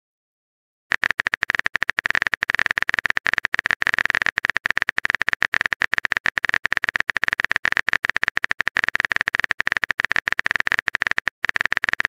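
Keyboard-typing sound effect: a long run of rapid, irregular clicks, starting about a second in, as the next chat message is typed.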